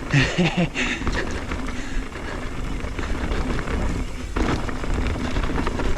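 Mountain bike riding down a rough, rocky trail: a continuous rush of tyre and chassis noise with low wind rumble on the microphone, and a sharp knock about four seconds in.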